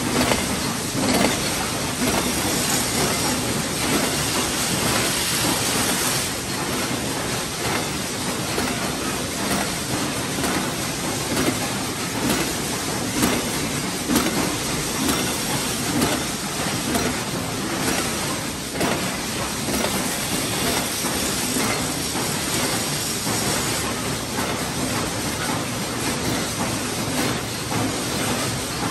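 BS & Sons bolt head trimming machine running, its ram trimming bolt heads in a steady, rapid clatter of metal knocks.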